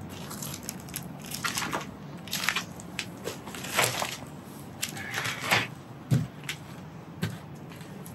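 Irregular crunches and scrapes of burnt, fire-damaged debris being disturbed, about a dozen separate crackly sounds at uneven intervals.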